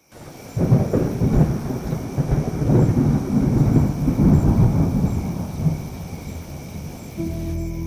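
A long roll of thunder that sets in sharply about half a second in, crackling and rumbling, then fades away over about six seconds. Background music with sustained low tones comes in near the end.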